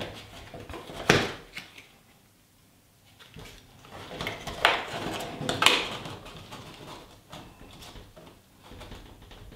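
A business card being pushed and worked into a hole in a hollow-core masonite door panel, with a few sharp taps and scrapes against the door skin: one about a second in and a pair around five to six seconds in.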